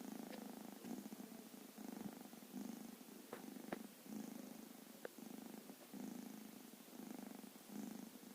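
A sleeping kitten's soft, rhythmic rumble with each breath, the pulsing purr-like sound the uploader calls snoring, coming in phrases a little under a second long one after another. A few light clicks stand out about a third of the way in and again near the middle.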